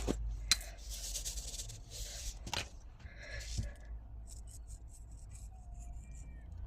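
Light handling sounds: a few sharp clicks and taps with rubbing and rustling in between, fading in the second half to faint short scratches, over a steady low hum.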